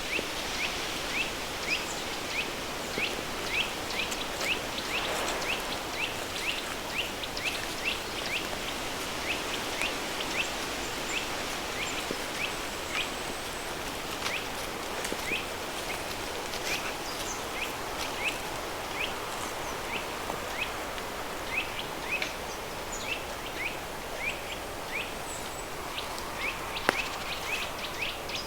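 Steady rush of a river stream blended with added pink noise, over short high chirps repeating about twice a second that come more sparsely in the second half.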